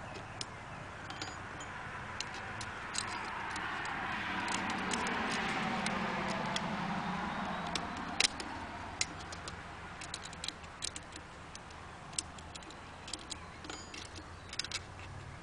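Small metal clicks and taps as the screws and plates of a knife sharpener's steel clamp are handled, the sharpest about 8 seconds in. Behind them a vehicle passes, rising for a few seconds, then falling in pitch and fading.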